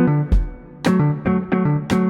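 Background music: plucked guitar notes and bass played to a steady beat.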